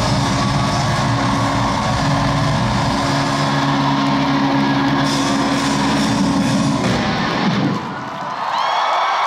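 Live band at a stadium concert holding a loud, sustained closing chord over crowd noise; the music cuts off about seven seconds in and the crowd cheers and screams.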